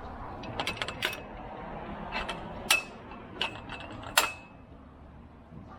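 Mountain bike being ridden, giving off a series of sharp, irregular metallic clicks and creaks from its frame and drivetrain, a few with a brief ringing tone, over a low rumble of rolling.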